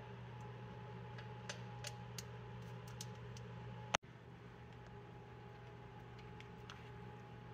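Faint, scattered light clicks and taps of metal brake hardware being handled and fitted by hand: a caliper slide pin at the bracket, then a new pad and its clip. There is one sharper click about four seconds in, over a steady low background hum.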